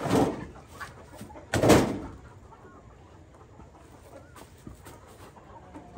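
Two heavy thumps about a second and a half apart, the second the louder: a hand knocking a nest box into place on its wooden mounting rail.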